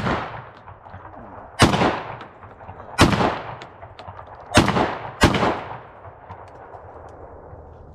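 Black Aces Tactical FD12 semi-automatic 12-gauge bullpup shotgun firing five very loud shots, one right at the start and then four more at uneven gaps, the last two close together, each followed by a long echo. The shotgun cycles each round without a hitch: it functions properly straight out of the box.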